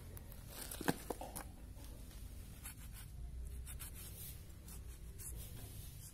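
Goat hide being pulled off a hanging carcass by hand, tearing away from the hind leg in a series of short scratchy rips. Two sharp clicks about a second in.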